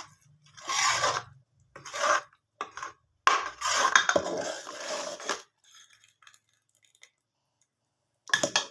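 Metal pot and utensils clattering and scraping in several short bursts, the longest lasting about two seconds near the middle, then a pause and one more brief clatter at the end.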